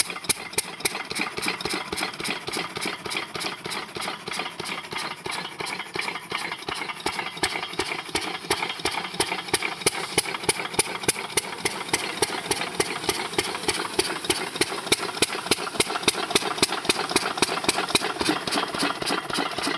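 A 12 hp single-cylinder stationary diesel engine running steadily, each firing stroke a distinct knock in a fast, even beat.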